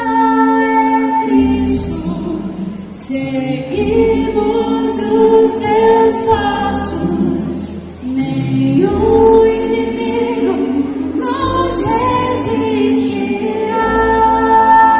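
Gospel music with voices singing long held notes over a bass line.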